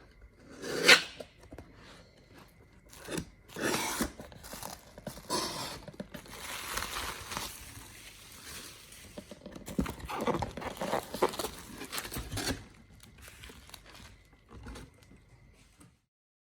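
Product packaging being handled and torn open: crinkling, tearing and rustling in irregular bursts, the sharpest about a second in.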